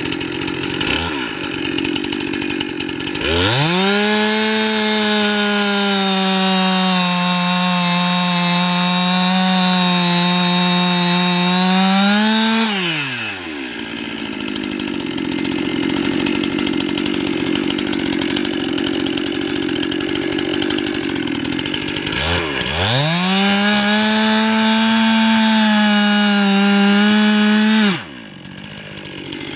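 Stihl MS261C 50cc two-stroke chainsaw idling, then going to full throttle and cutting into a log for about nine seconds, its pitch sagging slightly under load. It drops back to idle, then revs up again a little after twenty seconds for a second cut of about five seconds. The high revving stops abruptly near the end.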